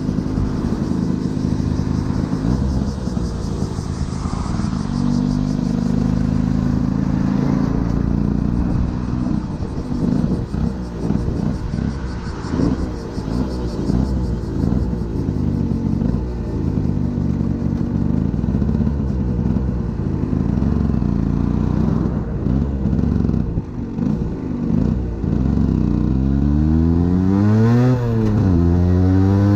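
Aprilia 50cc motorcycle engine running while riding, its pitch stepping and gliding up and down with throttle and gear changes. Near the end it revs up hard, rising and falling.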